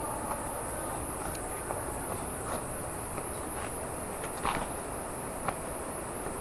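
Steady high-pitched shrilling of an insect chorus, with a few faint short knocks of footsteps, the clearest about four and a half seconds in.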